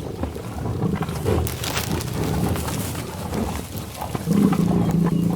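Cow mooing: one long, low moo begins about four seconds in, over a low rumbling background.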